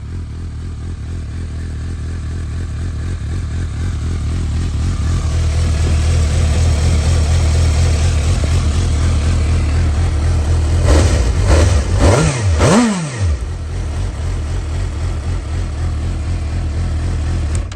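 2012 Suzuki GSR750's inline-four running through a Yoshimura carbon exhaust. It idles steadily, growing louder over the first few seconds, then is revved in about three quick throttle blips around eleven to thirteen seconds in before settling back to idle.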